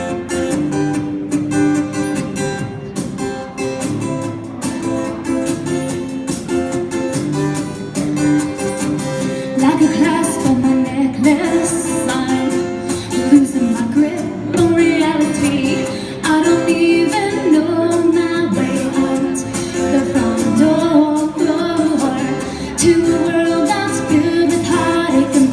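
A song with singing over guitar and a steady beat.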